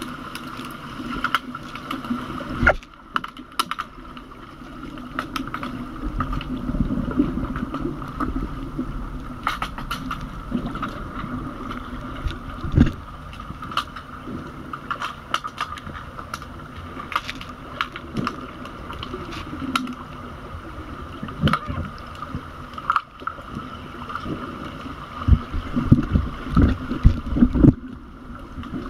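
Underwater hockey heard from under the water: a steady hum and water noise, with many sharp clicks and knocks of sticks and the puck striking each other and the tiled pool floor. The knocks come in a louder flurry near the end.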